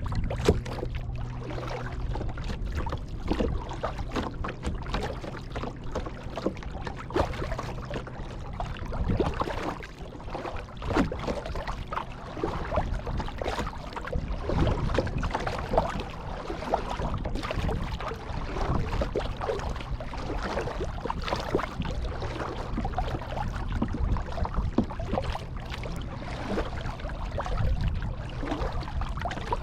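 Kayak paddle strokes in pond water: irregular splashes and trickling drips as the blades dip and lift.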